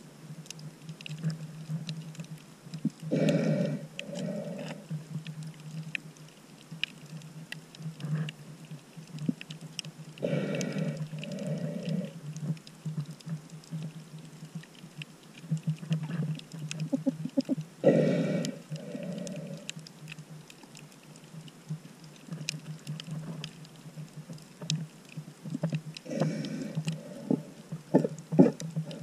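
Snorkeler breathing through a snorkel, heard muffled underwater: four long breaths about seven seconds apart, each in two parts, over a steady low hum, with faint scattered clicks and crackles between them.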